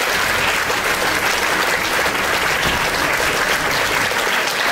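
Audience applauding in a hall: steady, dense clapping from many hands.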